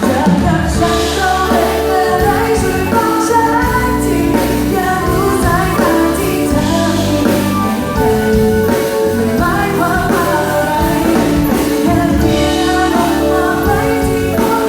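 A woman singing a Thai pop song over band accompaniment, loud and continuous.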